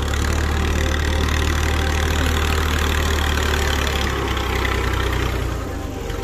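New Holland 480 Special tractor's diesel engine running steadily with a low hum, which drops and changes near the end.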